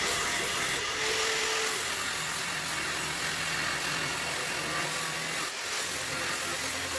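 A metalworking tool working steel: a steady, harsh hiss that dips briefly about five and a half seconds in.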